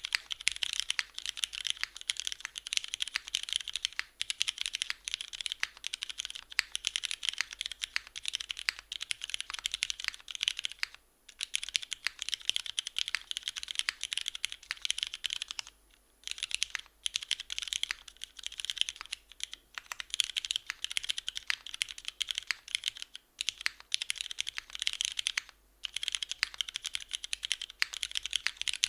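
Fast, continuous typing on a 60% mechanical keyboard with lubed Cherry MX Red linear switches, GMK Moomin ABS keycaps and a top-mounted aluminium plate with no foam dampening, with a few brief pauses in the keystrokes.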